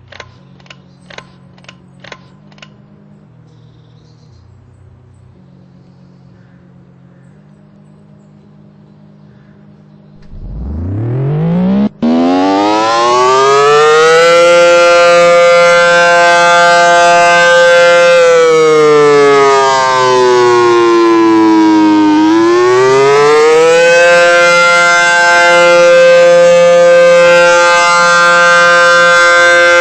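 A few sharp clicks over a low hum, then about ten seconds in a siren winds up to a loud, steady wail with many overtones. Its pitch sags and climbs back once before holding steady again.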